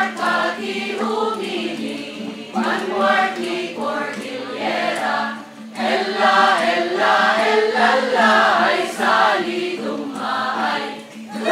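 A group of voices singing together in chorus, with a steady low hum underneath.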